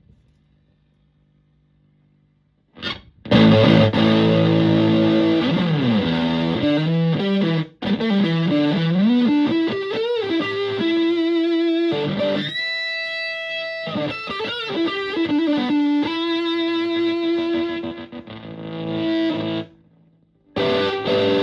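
Stratocaster electric guitar played through a Zonk Machine fuzz pedal into a Fender Twin-style amp: distorted, fuzzy chords struck after a near-silent start. The notes bend up and down in pitch, a steady high note is held for a moment, the sound fades out, and a fresh chord is struck near the end.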